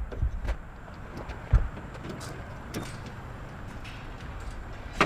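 A few knocks and thumps over a low rumble, the loudest about one and a half seconds in and another just before the end.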